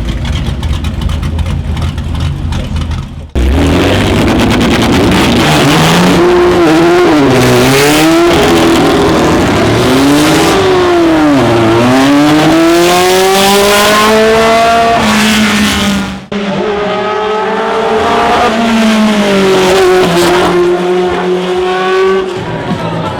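Racing car engines at full throttle, the pitch climbing and dropping again and again as they rev and shift gears. A low engine rumble opens, and the sound cuts abruptly twice, about three seconds in and again past the middle, from one car to the next.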